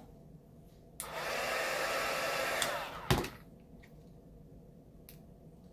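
Heat gun blowing hot air on vinyl wrap, a steady rush that runs for about two seconds and then stops. A single sharp knock follows right after.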